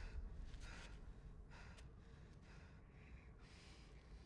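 Faint, heavy breathing from a frightened person: about five short, hissy breaths, roughly one a second, over a low steady rumble.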